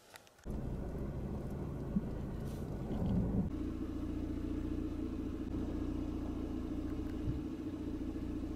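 Army 6x6 truck's diesel engine running steadily as the truck drives along, a low rumble that sets in about half a second in.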